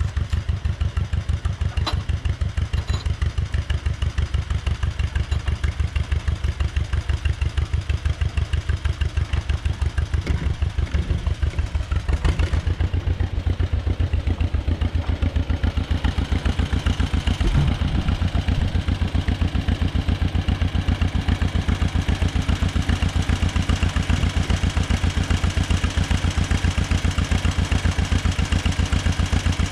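Old John Deere two-cylinder tractor engine running steadily, its exhaust giving an even, rapid pulsing beat; the note shifts slightly about halfway through.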